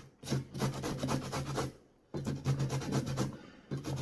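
Carrot being grated by hand on a stainless steel box grater set in a metal bowl: quick, even rasping strokes in three runs, broken by brief pauses just after the start, around two seconds in and near the end.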